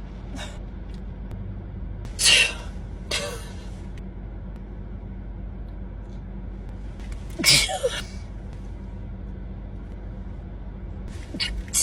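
A woman sneezing, set off by a nasal swab: one loud sneeze about two seconds in with a second short burst right after it, and another loud sneeze about seven and a half seconds in. A steady low hum runs underneath.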